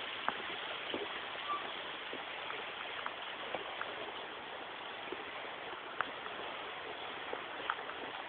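A stream running over stones: a steady rush of water, with a few faint clicks scattered through it.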